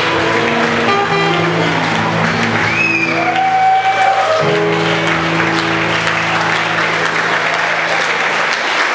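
Live dance band holding a sustained final chord to end a song while the audience applauds. The chord cuts off near the end, leaving only the applause.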